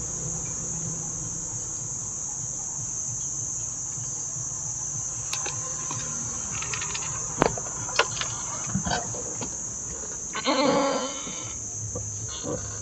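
Steady high-pitched trill of insects such as crickets, with a few sharp clicks of handling about halfway through and a short pitched animal call about ten seconds in.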